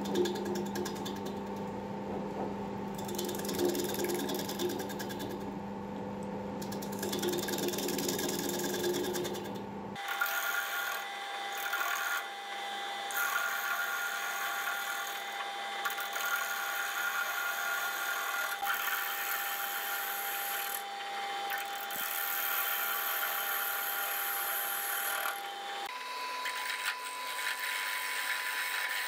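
Wood lathe running with a steady motor hum while a gouge cuts into the spinning plum-wood bowl blank, hollowing out its inside with a rough, uneven cutting noise. The hum's pitch changes abruptly about ten seconds in and again near the end.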